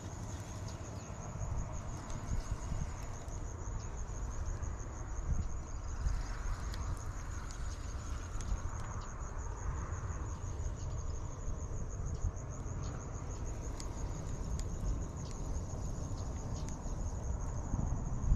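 An insect trilling steadily, a high, fast-pulsing buzz that never lets up, over a low rumble of wind on the microphone.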